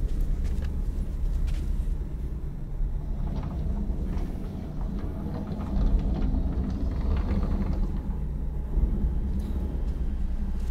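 Low, steady rumbling drone of horror-film sound design, with a few faint soft knocks over it.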